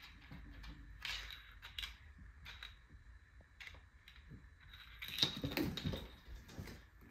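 A cat's claws and paws clicking and scrabbling on a hardwood floor as it plays, in scattered taps with a louder flurry of scratching about five seconds in.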